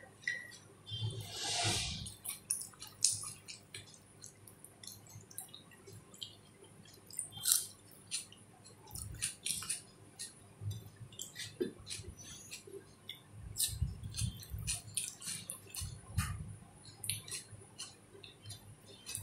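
Eating rice and curry by hand: fingers squishing and mixing the wet food on a plate, with chewing and scattered small clicks.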